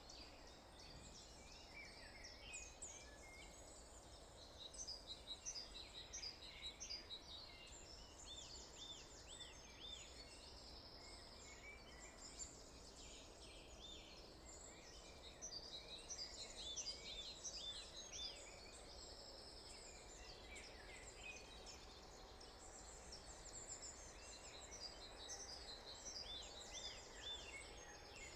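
Morning chorus of several songbirds singing at once: many quick chirps and whistled notes, some phrases repeated, heard faintly over a steady low background hum.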